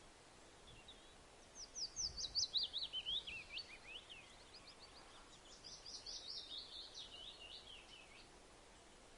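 A songbird sings two fast runs of short high notes, each run stepping down in pitch: one about a second and a half in and a second about five and a half seconds in.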